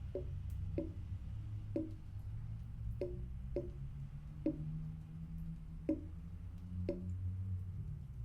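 Water dripping from the faucet into the bathroom sink: single hollow plinks at an uneven pace of about one a second, over a steady low rumble.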